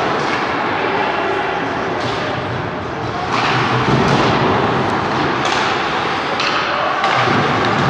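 Ice hockey game sounds in an arena: steady rink noise with skates scraping on the ice and several sharp clacks and thuds from sticks, puck and boards.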